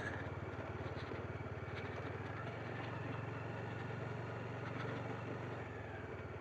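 Motorcycle engine running steadily at low revs, a fast even low pulse that rises a little midway and eases off near the end.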